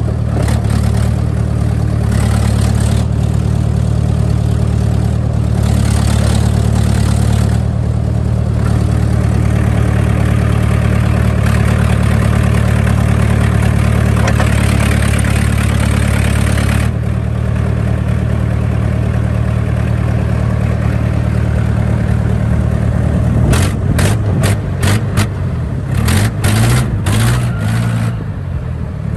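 1993 John Deere 310D backhoe loader's diesel engine running steadily. A hiss rides over it through the middle, and a string of sharp clanks comes near the end.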